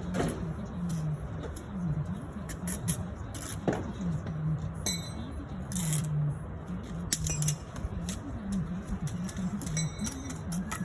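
Bricklaying work: a steel trowel clinking against bricks and mortar several times, sharp separate taps. Under it a low tone wavers up and down throughout.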